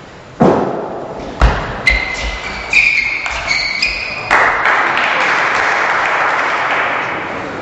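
Table tennis rally: the celluloid ball clicking off the table and rackets several times with short, high pings, after two heavy thuds. About four seconds in, the crowd breaks into applause that runs on and slowly fades.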